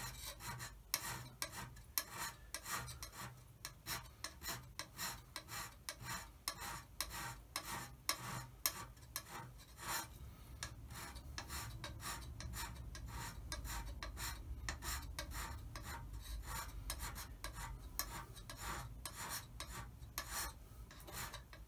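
Hand scraper with a sharp cutting tip working the cast-iron bed ways of a Holbrook lathe: a quick run of short scratchy strokes, a few a second. It is finish scraping, taking off only the surface to smooth out chatter and scratch marks after roughing down.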